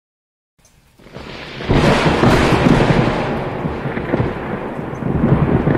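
Loud rushing roar of a muddy flash-flood river in spate, with a deep rumble underneath. It swells in over the first two seconds and then holds steady.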